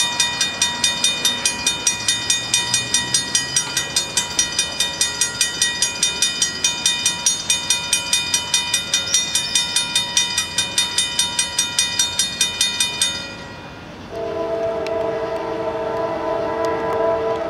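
Railroad crossing bell ringing at about four strikes a second, stopping about thirteen seconds in. Just after, a train horn sounds a steady chord of several notes for about three seconds near the end.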